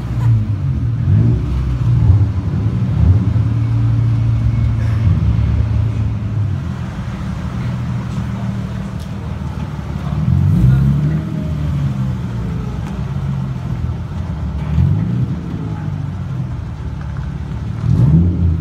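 Car engine and road noise, a steady low drone whose pitch rises and falls several times.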